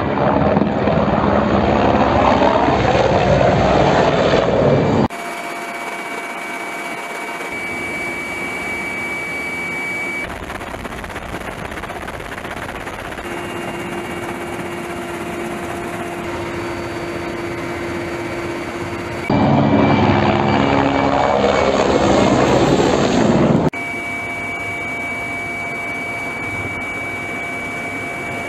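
Military helicopters, in an edited sequence of shots. Twice, for a few seconds, a helicopter passes close and loud, its rotor sound sliding in pitch as it goes by. Between the passes, abrupt cuts switch to the steadier rotor and turbine noise inside a helicopter cabin, with a constant high whine.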